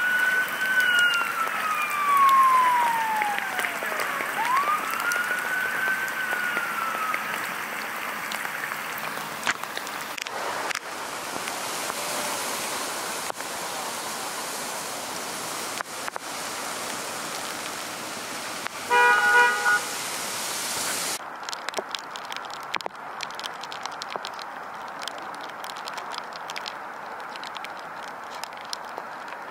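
An emergency vehicle siren wails, rising and falling twice in the first several seconds over a steady hiss of rain. About two-thirds of the way through, a vehicle horn gives one short toot.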